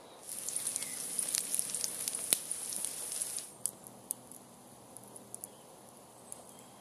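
Food frying in a pan over a small wood fire: a hissing sizzle full of sharp crackles that stops about three and a half seconds in, leaving only the occasional pop of the wood burning in a folding box stove.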